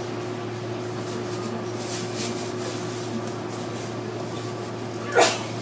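Steady electrical hum and air-conditioning noise from a JR Kyushu 305 series electric train car standing still, with a brief loud sharp sound about five seconds in.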